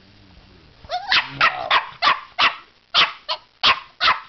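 Puppy barking: after a quieter first second, a rapid string of about ten short, sharp barks, roughly three a second.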